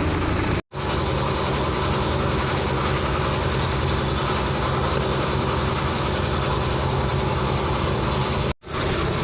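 Steady low mechanical hum of a running motor or engine, cut off for a split second twice.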